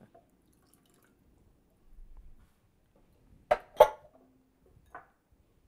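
Water poured into tomato sauce in a stainless steel saucepan and stirred with a wooden spoon, faint and wet, with two sharp knocks on the pot a third of a second apart about three and a half seconds in and a lighter knock about a second later.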